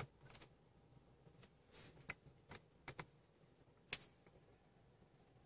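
Light plastic clicks of the steering-wheel menu buttons being pressed, about eight scattered through the first four seconds. The sharpest comes near four seconds in, then the clicking stops.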